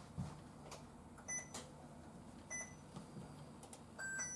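Induction cooktop's control panel beeping as its touch keys are pressed: two short beeps about a second apart, then two more at a lower pitch near the end, with faint clicks in between.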